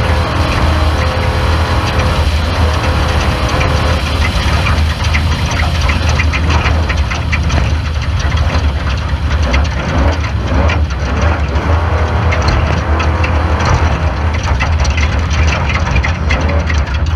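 Off-road race car running on the course: a steady low engine drone under dense rattling noise.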